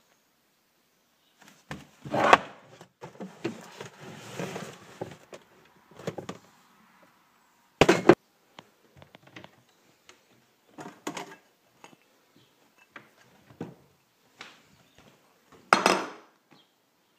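Kitchen handling noises: cupboard doors and drawers knocking open and shut and dishes clattering, with sharp clacks about two seconds in, around eight seconds, and near the end as a ceramic bowl is set down on a granite countertop.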